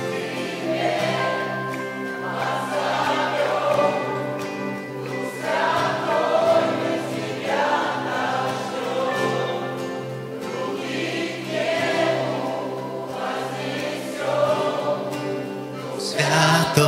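Congregation singing a worship chorus together in a phrase-by-phrase group sound, over a band's steady held chords.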